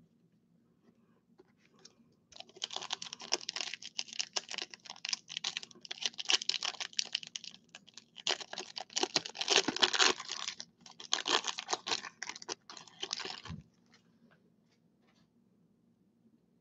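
A Topps Chrome baseball card pack's wrapper crinkling and tearing as it is opened, in irregular crackling spells with a couple of short pauses. It stops a few seconds before the end.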